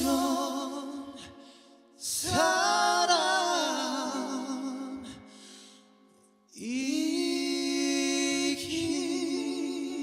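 Two male singers holding long notes with vibrato over soft, sustained accompaniment, with no lyrics; a new phrase swells in about two seconds in and again about six and a half seconds in.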